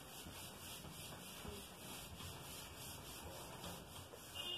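Handheld whiteboard eraser wiping marker off a whiteboard: faint, repeated rubbing strokes.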